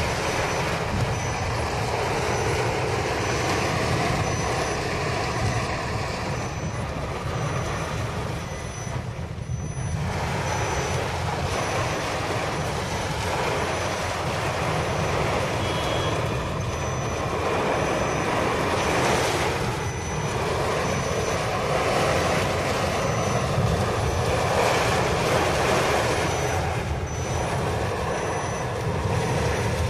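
Heavy rain pelting a car's roof and windscreen, heard from inside the moving car, with the windscreen wipers sweeping and the car's engine and wet tyres running low underneath. A steady, loud hiss that swells a little now and then.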